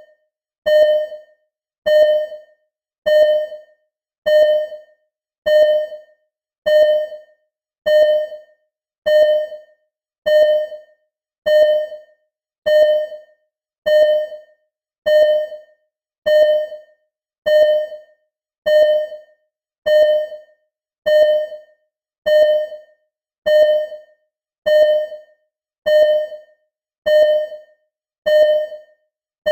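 Simulated hospital ECG heart monitor beeping: one short, mid-pitched electronic beep repeating steadily about once every 1.2 seconds, each fading quickly.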